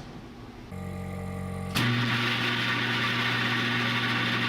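Homemade 20,000-watt microwave oven powering up. A steady electrical hum starts about a second in; then, with a sharp click, a louder steady hum and hiss come on as full power is applied for the run that melts tungsten wire.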